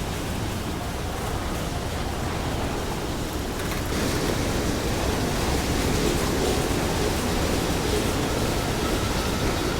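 BNSF container train rolling past, a steady rumbling noise of wheels on rail with no horn, growing a little louder about four seconds in.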